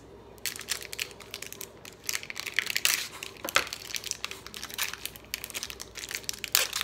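Plastic wrapper of a block of mozzarella crinkling and crackling in irregular bursts as it is opened by hand, starting about half a second in.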